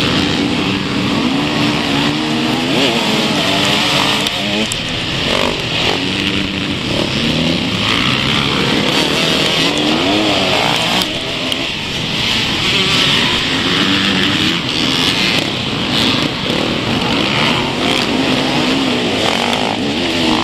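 A pack of enduro motorcycles under hard acceleration in a mass race start, several engines revving at once, their notes repeatedly rising and dropping as the riders open the throttle and shift gears.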